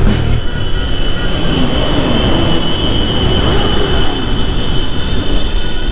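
Motorcycle under way: a steady rumble of engine and wind noise with a thin, steady high whine.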